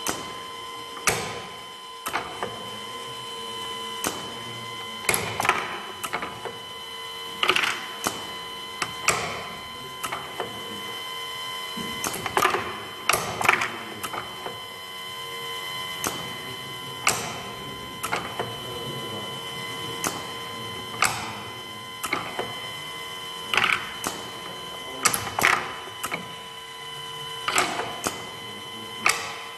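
Automated sorting line running: the conveyor drive gives a steady whine while pneumatic cylinders and their valves fire with sharp clacks, some followed by a short hiss of air, about every one to two seconds as parts are pushed off into the bins.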